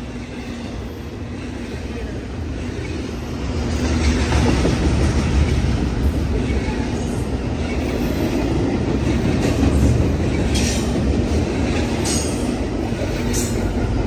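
BNSF double-stack intermodal freight train's well cars rolling past close by: a steady rumble of steel wheels on rail that grows louder about four seconds in. A few brief, sharp, high sounds come from the running gear in the second half.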